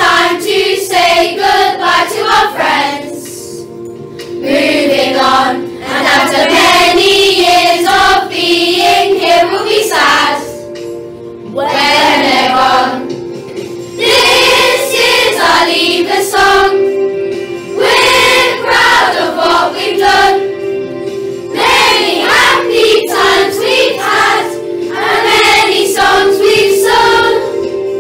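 A group of children singing a worship song together to instrumental accompaniment. The sung lines come in phrases with short breaks between them.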